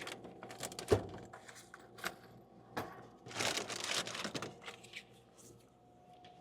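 Snack packages crinkling and rustling as they are handled and loaded into a vending machine, with a sharp knock about a second in and a few light clicks. A faint steady hum runs underneath.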